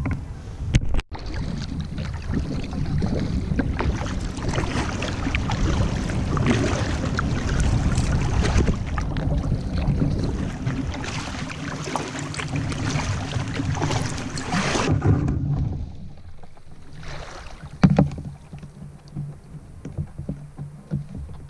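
Kayak paddling: a double-bladed paddle stroking and splashing through the water beside a sit-on-top kayak. The paddling stops abruptly about fifteen seconds in, leaving quieter water sounds and a single sharp knock a few seconds later.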